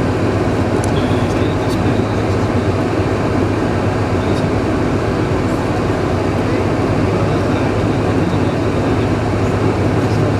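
Steady cabin noise inside a Boeing 747-436 on the ground: its four Rolls-Royce RB211 engines running at low taxi power, with a low hum and an even rumble that stays level throughout.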